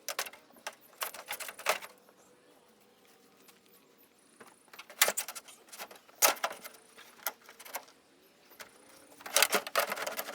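Scattered clicks and clattering knocks in uneven clusters, with a dense flurry near the end: the decorative cover of a pop-up camper's rooftop air conditioner being worked loose and lifted off.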